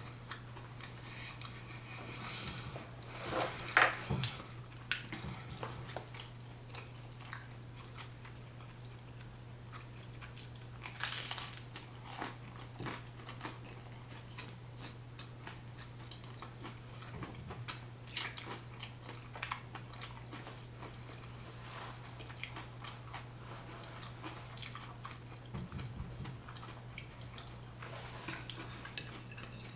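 A person biting and chewing deep dish pizza close to the microphone: scattered crunches, smacks and mouth clicks over a steady low hum.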